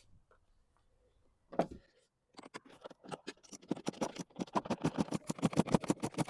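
A single knock, then a hand ratchet clicking rapidly and evenly as bolts are run in, the clicks growing louder and quicker.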